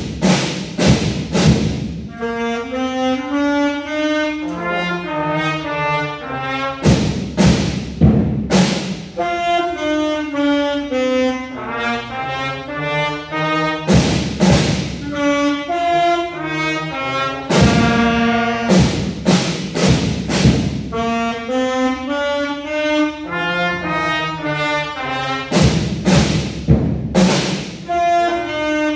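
A beginner school band of trumpets and saxophones plays a tune, starting abruptly, with clusters of loud drum strikes every several seconds.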